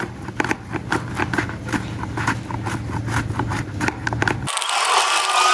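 An unripe banana scraped back and forth over the blade of a plastic mandoline slicer, a quick rhythmic scraping at about four strokes a second. Near the end the slicing cuts off suddenly and background music begins.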